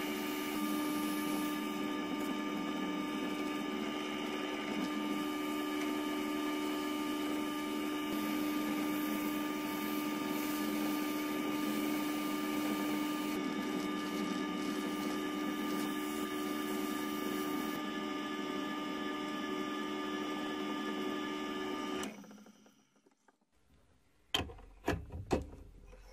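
Antique 1893 Strube & Fils lathe running with a brass pen tube turning in the chuck while 1000-grit abrasive paper is held against it to give a matte finish, a steady mechanical hum with a light hiss. The lathe stops abruptly about 22 seconds in, followed by a few sharp clicks and knocks near the end.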